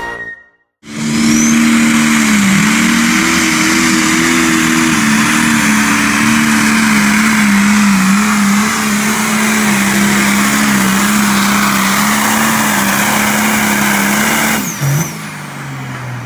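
Limited pro stock pulling tractor's turbocharged diesel engine at full throttle through a pull: a loud, steady engine note with small dips, starting about a second in and cutting off sharply near the end.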